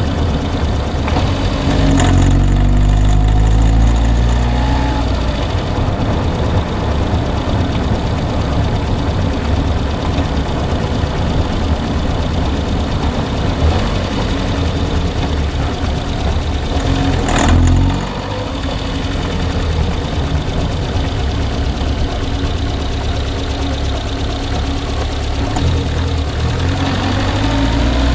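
Car engine idling with a knock. The revs are raised about two seconds in and settle back, then blipped briefly past the middle and again near the end.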